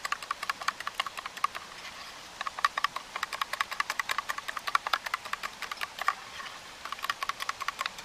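Pancake batter of egg, water and oil being beaten by hand in a metal camp mug: quick clinking strokes of the utensil against the mug, several a second, in runs with short breaks about two and six seconds in.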